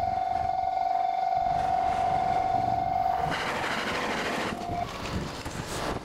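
Japanese level-crossing warning bell, sped up tenfold so its strikes run together into one steady high tone. About halfway in it stops as the rush of a passing train rises and fades, and the crossing clears.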